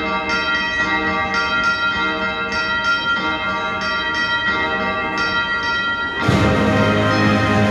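Bells ringing a peal, struck about three times a second. A little over six seconds in, a military brass band comes in all at once, louder and fuller, with low brass and drums.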